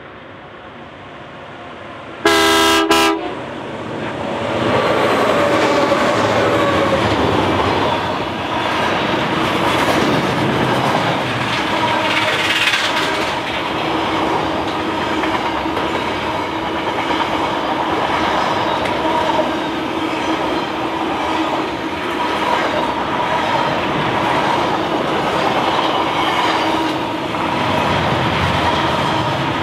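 A freight train hauled by EMD SD70ACe diesel locomotives with EMD 710 engines sounds a short horn blast about two seconds in. The locomotives then pass, and a long string of container wagons and boxcars rolls by with steady wheel-on-rail noise and regular clicking over the rail joints.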